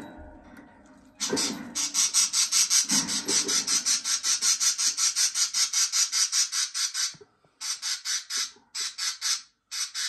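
A budgerigar in the nest box making a fast, even run of scratchy rasping pulses, about five or six a second, for several seconds. Near the end it breaks into short bursts with gaps between them.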